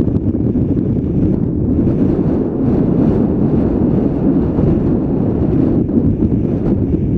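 Wind rushing over a helmet-mounted GoPro's microphone during a ski descent: a loud, steady low rumble, with a faint hiss and scrape of skis running through fresh snow.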